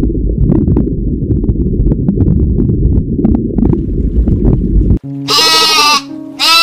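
Low underwater rumble with faint clicks of water movement, cut off suddenly about five seconds in. A sheep then bleats once, a single wavering bleat.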